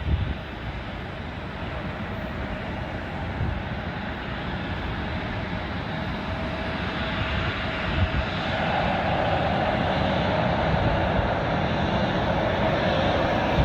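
McDonnell Douglas F-15C Eagle jet engines, twin Pratt & Whitney F100 turbofans, running with a steady noisy rumble and a hum. They grow louder about eight seconds in.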